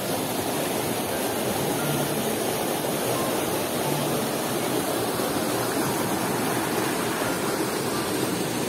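Rocky stream running over boulders and small cascades: a steady rush of water.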